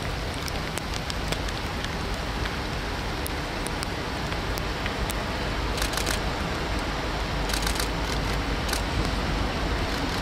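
Diesel freight locomotives approaching from a distance: a low, steady rumble that grows slowly louder, with scattered faint clicks on top.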